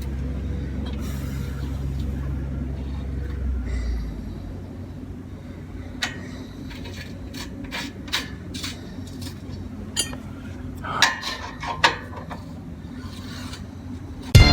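Spanners and bolts clinking and tapping on a metal steering guard as its nuts are fitted: a scattered run of sharp clinks, bunched a little near the end. A low steady rumble fades out about four seconds in.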